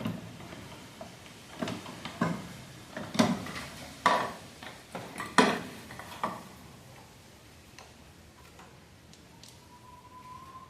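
Metal tools and engine parts clinking and knocking as a motorcycle engine is taken apart by hand. There are about six sharp knocks in the first six seconds, then quieter handling.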